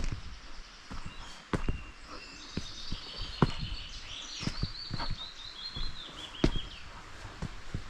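Footsteps walking at a steady pace, with a small songbird singing one long phrase of rapid trilled notes that slowly falls in pitch, from about two seconds in until near the end.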